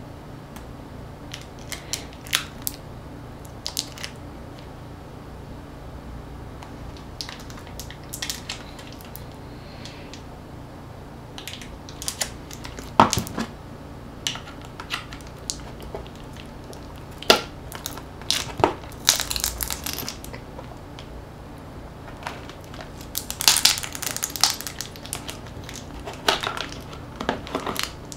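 A small pry tool scraping, clicking and clacking against the inside of a smartphone as a glued-in battery is forced out. Irregular sharp clacks come with short rasping scrapes, busiest in the second half.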